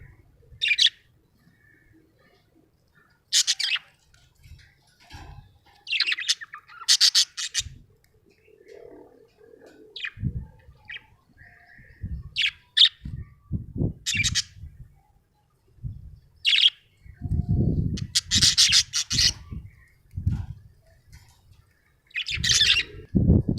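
Budgerigar chirping and chattering in short, scattered bursts of high calls, some in quick runs. Low thumps and rumbles come in between, heaviest in the second half.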